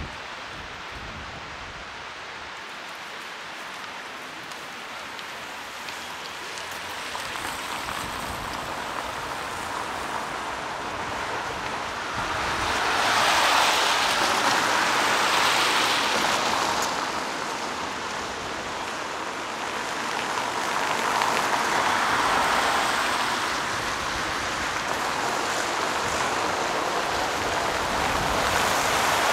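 Heavy rain falling, an even rushing noise that swells louder twice, near the middle and again a few seconds later.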